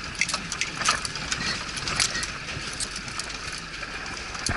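An off-road vehicle's engine running while driving over rough ground, with scattered rattles and knocks from the body and loose parts.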